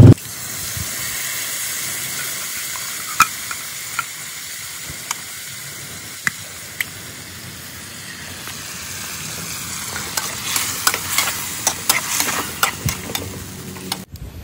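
Canned sardines with sautéed tomato, garlic and onion sizzling in a metal wok over a wood fire, with a metal spatula clinking against the pan now and then. In the last few seconds the spatula scrapes and clatters quickly as the mix is stirred.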